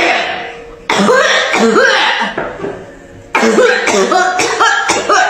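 A person coughing in voiced, hacking fits: one bout about a second in, then a run of short coughs in quick succession from about three seconds in.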